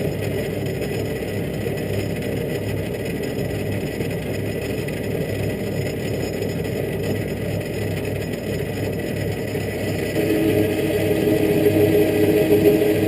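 Metal lathe with a vertical milling slide running while machining a steel sprocket: a steady machine hum and whir that gets louder, with a stronger droning tone, about ten seconds in.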